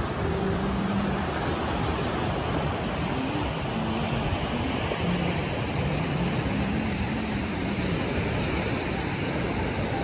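Steady rush of ocean surf washing over a rocky shoreline, with a few faint short tones beneath it.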